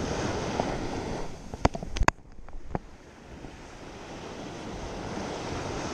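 Small waves breaking and washing up a beach, with wind on the microphone. A few sharp clicks come about a second and a half in, then the sound drops suddenly and the surf carries on quieter.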